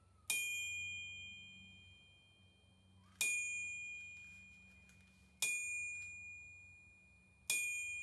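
A steel ball bearing is dropped four times onto the face of a 66 lb VEVOR cast steel anvil, about two to three seconds apart. Each strike sets the anvil ringing with a clear high tone that fades away. This is a ball bearing rebound test of the anvil face.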